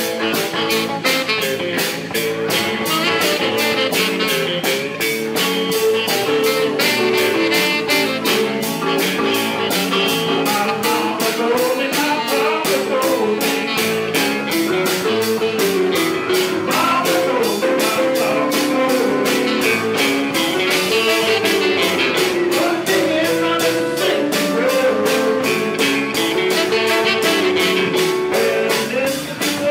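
Live blues band playing: electric guitar lines over a drum kit keeping a steady beat.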